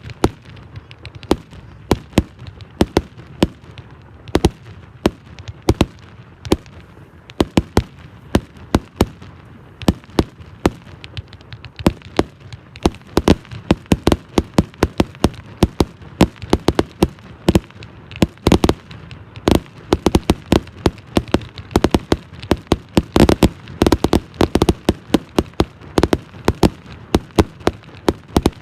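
Fireworks display: a long run of sharp bangs and pops at irregular intervals, sparse at first and coming much thicker and faster from about twelve seconds in.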